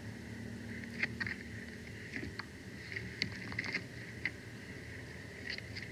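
Sticks of a bald eagle nest crackling and snapping as an eagle shifts and works on it: a scatter of short, sharp twig cracks, mostly in the first four seconds and again near the end. Under them runs a steady camera-microphone hum with a thin high whine.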